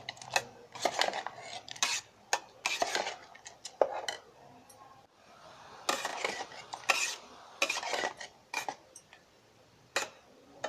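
A spoon stirring chutney in an electric kettle, clinking and scraping against the kettle's inside in irregular strokes, with two brief pauses.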